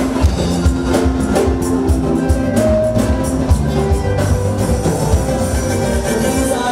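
Praise band playing an instrumental passage with a steady beat: drum kit, bass and guitar.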